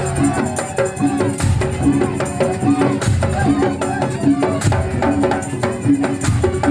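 Madurese tongtong (daul) music ensemble playing: regular drum and rattling percussion strokes under a melody of short repeated pitched notes, with a bending melodic line above.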